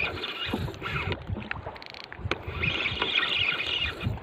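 Spinning reel being cranked hard against a hooked fish on a bent rod, with a short run of fast clicks about halfway through. Underneath are water slapping the small wooden boat's hull and wind on the microphone.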